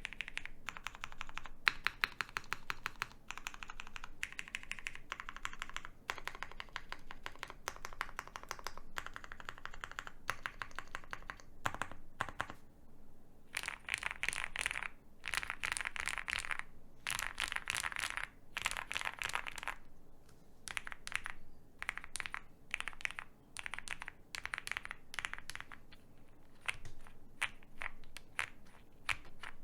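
Typing on a mechanical keyboard with lubed linear Cherry MX Hyperglide Black switches on an FR4 plate, with CRP Xerox keycaps. Runs of quick keystrokes come with brief pauses, and the most continuous typing falls in the middle.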